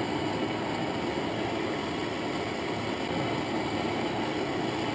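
Handheld gas torch burning steadily with an even rushing hiss, its flame heating an aluminium clutch lever for brazing with a Durafix rod.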